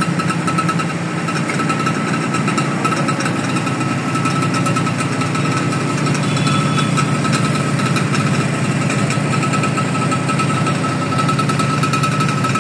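A small engine running steadily, with a constant high whine over a dense, rapid rumble.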